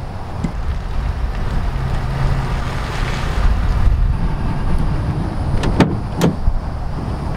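Low, steady rumble of a vehicle engine running, with two short sharp knocks near the end.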